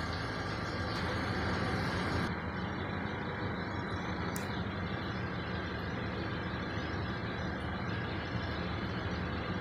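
Petrol car engine idling steadily at working temperature, its radiator cap off for a coolant-bubble check for a compression (head gasket) leak.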